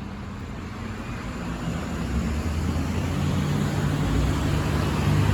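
Road traffic on a rain-wet street: a motor vehicle approaching, its tyre hiss and low engine hum growing steadily louder.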